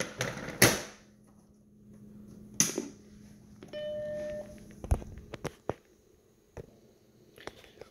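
A few handling thumps and a click, then the Apple Macintosh SE's startup beep about four seconds in: one short, steady electronic tone lasting under a second. Several sharp clicks follow as the machine begins to boot.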